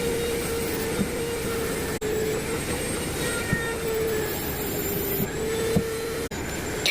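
Steady rumble of a moving vehicle with a constant hum, broken by brief dropouts about two seconds in and again near the end.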